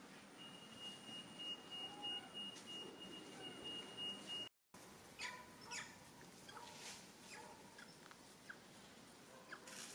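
Faint outdoor ambience with bird chirps: a steady high trill in the first half, then scattered short chirps. The sound drops out completely for a moment about halfway through.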